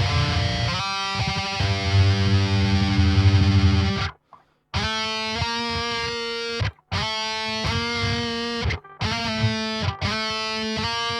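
Distorted electric guitar playing a heavy metal riff. It opens with about four seconds of fast, low chugging, stops briefly, then plays a run of held, ringing chords, each about one to two seconds long with short breaks between them.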